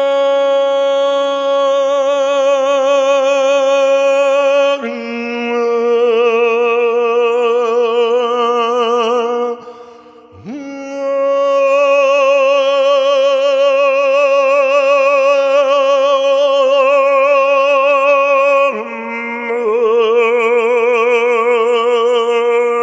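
Male voice singing long held notes in a slow meditative chant, with a wavering vibrato and rich overtones. The tones break for breath about ten seconds in and again a few seconds before the end.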